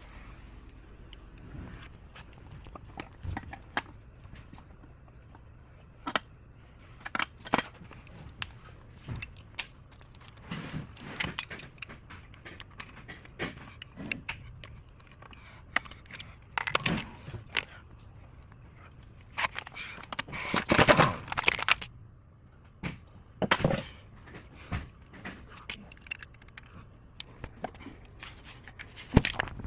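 Scattered metallic clinks, knocks and scrapes of hand tools and engine parts being handled during an engine teardown, with a louder burst of clattering a little past two-thirds of the way through.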